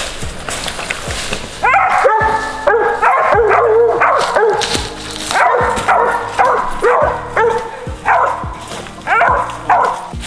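Squirrel dogs barking in quick, repeated chops, more than one voice overlapping, starting a couple of seconds in: the bark of hounds treed on a squirrel.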